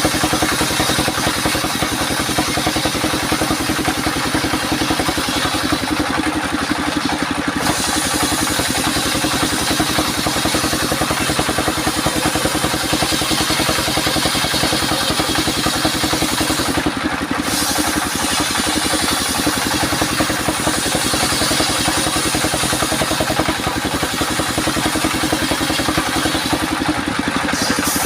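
Homemade circular sawmill machine running steadily, a constant loud mechanical drone with a fast pulse under it. The high hiss drops away briefly three times.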